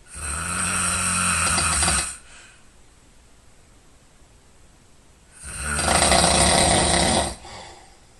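A person snoring loudly in sleep: two long snores of about two seconds each, the second starting about five seconds in, with quiet breathing between them.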